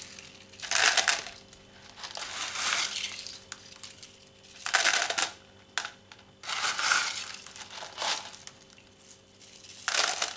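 LECA expanded-clay pebbles being scooped and poured into a plant pot, rattling and clattering in about five short bursts.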